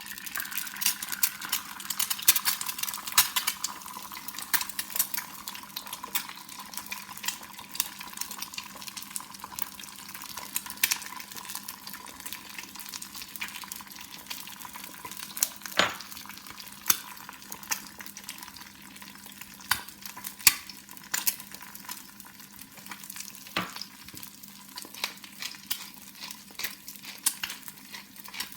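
An egg frying in hot olive oil in a pan: a steady sizzle with many crackling pops, busiest in the first few seconds after the egg goes in.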